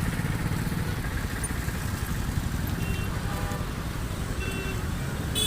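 Steady low rumble of road traffic, with faint horn toots in the second half.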